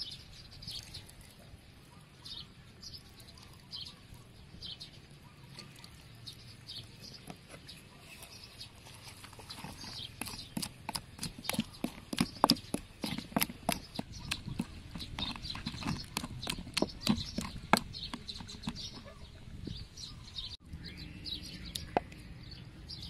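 Pestle pounding a wet mash of chili, garlic and onion in a mortar: a quick run of knocks, several a second, starting about ten seconds in and thinning out after about eight seconds.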